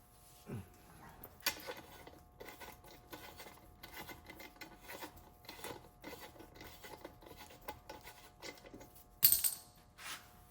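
Small metal hand tools and parts clinking and rattling as they are handled, with one sharp metallic clink about nine seconds in.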